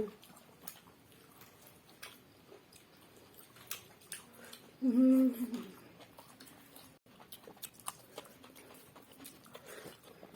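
Quiet eating sounds of rice and curry being eaten by hand: soft chewing with small mouth smacks and clicks. About five seconds in comes a short, steady hum.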